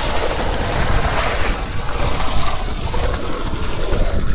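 Water being poured in a steady rush into a lightning-arrestor earth pit, splashing as it soaks the earthing material.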